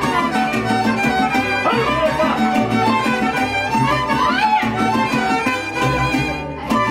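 Live mariachi violin and guitar: the violin plays a melody with sliding notes over a strummed guitar rhythm.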